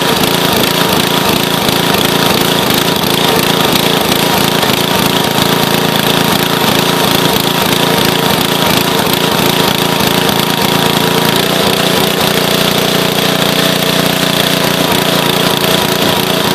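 Small petrol engine of a towable hydraulic log splitter running steadily and loudly; its note changes about two-thirds of the way through.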